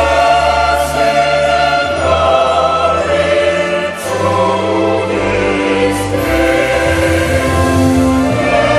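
Four-part SATB choir singing a choral anthem in harmony, moving slowly from one held chord to the next.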